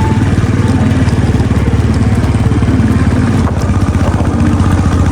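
Motorcycle engine running steadily under way, a rapid, even beat of firing pulses with a deep low drone.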